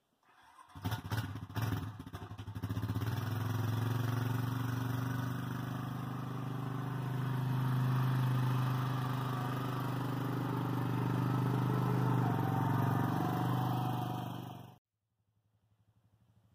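Four-wheeler (ATV) engine starting with a few uneven strokes in the first couple of seconds, then running steadily as it pulls away towing a loaded trailer. The sound cuts off suddenly near the end.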